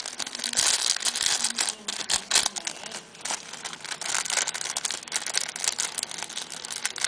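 Paper crinkling and rustling as hands rummage in a paper shopping bag, in quick irregular crackles with a brief lull about three seconds in.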